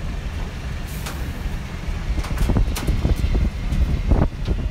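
Boeing 737-800 passenger cabin noise heard from a window seat: a steady low rumble with scattered short knocks and clicks, the loudest about four seconds in.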